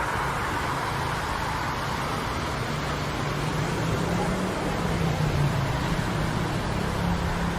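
City street traffic: the noise of a passing vehicle fades at the start, then steady road noise with a low engine drone that grows a little stronger about halfway through.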